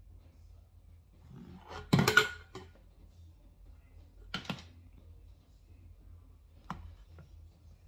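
Makeup items being handled and set down, among them an eyeshadow palette: a loud clatter about two seconds in, then two short, sharper clicks.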